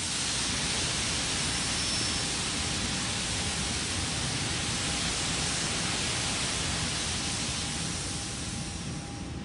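Gas venting around the 3D-printed Terran 1 rocket's first-stage engines makes a steady, loud hiss. It cuts in abruptly and eases off slightly near the end.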